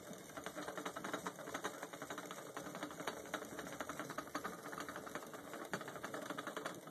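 Vintage Cory glass vacuum coffee maker bubbling as boiling water is forced from the lower pot up into the upper bowl: a fast, irregular crackle of bubbles.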